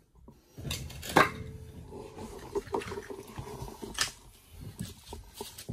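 Dirt being scooped and tossed by gloved hands in a trench, scraping and rustling with a few sharp knocks, the loudest about a second in.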